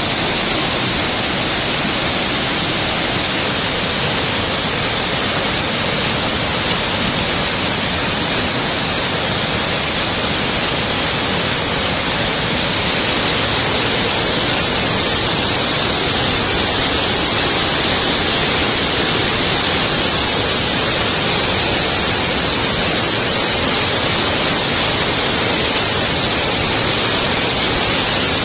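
Floodwater of a river in spate rushing over rock ledges in rapids: a loud, steady, unbroken rush of water.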